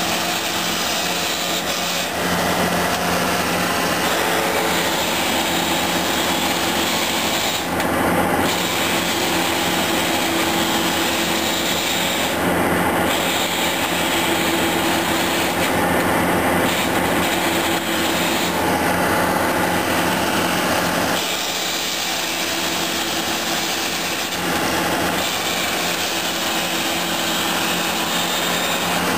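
Farm tractor engine running with the steady whirring clatter of a forage harvester, the sound changing abruptly a few times.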